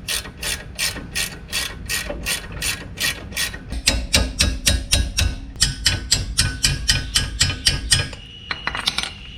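Ratchet wrench clicking in a steady run, about three to four clicks a second, as a bolt is wound in to refit the brake caliper.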